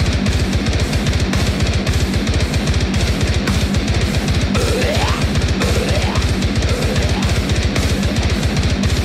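Heavy metal music: distorted guitars over a fast, even kick-drum pattern, with a few short rising glides about halfway through.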